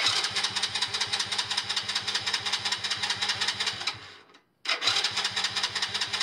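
Electric starter cranking a 110 cc ATV engine that does not fire: about four seconds of cranking, a brief stop, then cranking again near the end. The engine won't catch because the original ignition module fitted to it is dead.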